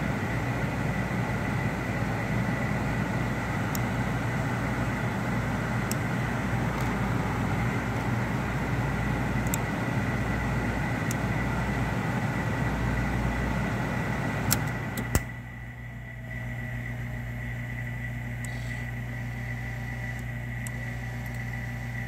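1985 Jaguar XJS's heater and air-conditioning blower running with a steady rush of air. About fifteen seconds in, a few sharp clicks come and the noise drops to a quieter, steady hum.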